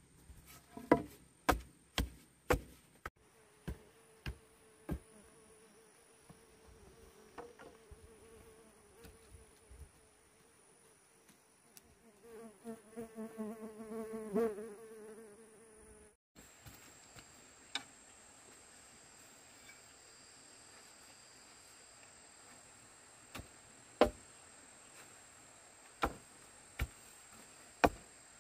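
An insect buzzing close by with a wavering pitch, growing louder around the middle and stopping abruptly, with sharp knocks or chopping strikes, several in quick succession at the start and a few scattered ones later.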